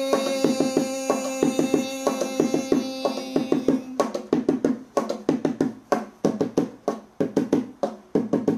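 Hand drum played with the hands in a steady rhythm, under a held pitched note that fades out about three and a half seconds in; after that the drum strokes carry on alone, about three a second.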